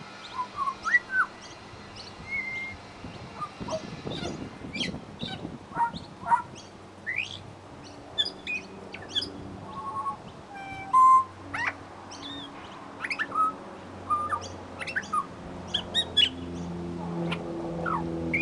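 Pied butcherbird singing a varied run of short whistled notes, chirps and quick pitch glides, the kind of medley in which it mimics other birds' calls. A low hum underneath grows louder near the end.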